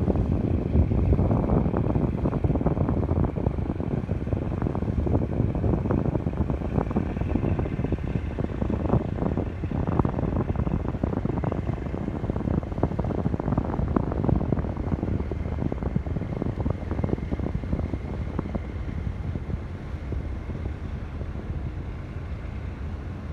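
Wind buffeting the microphone over the low, steady engine rumble of passing cargo ships, with a faint high whine above it. It eases off slowly toward the end.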